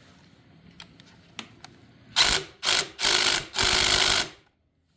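Impact wrench hammering in four bursts, two short then two longer, as it runs down and tightens the flywheel nut on a Honda ATC70 three-wheeler's crankshaft. A few light clicks come before the first burst.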